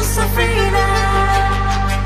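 Background music: sustained chords over a held bass note.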